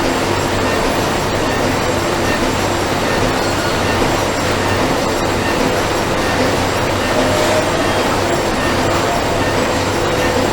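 Factory ambience: a dense, steady din of running machinery with a low hum and faint steady tones through it. A thin tone comes in about seven seconds in and again near the end.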